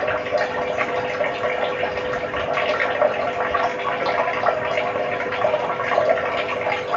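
Light water splashing and trickling in irregular small bursts over a steady background hum of several tones.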